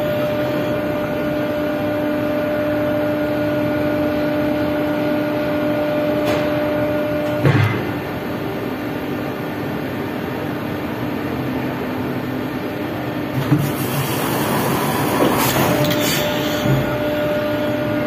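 Drop tower ride's lift machinery running with a steady hum and mechanical noise. There is a clunk about seven seconds in, after which the higher part of the hum drops out, then a few lighter knocks before it returns near the end.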